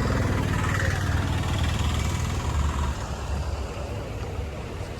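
A steady low rumble, strongest in the first three seconds and a little softer after.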